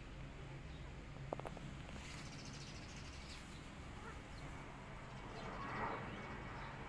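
Faint outdoor ambience: scattered bird chirps over a low steady background hum, with a brief click about a second in.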